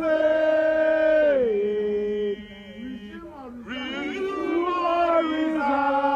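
Protesters' voices singing a slow protest chant in long held notes. The first phrase steps down in pitch about a second and a half in, there is a short break, then a second phrase is held.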